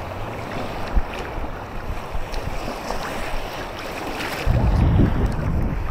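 Sea surf washing with wind blowing across the microphone; about four and a half seconds in, the wind buffeting turns into a heavy low rumble.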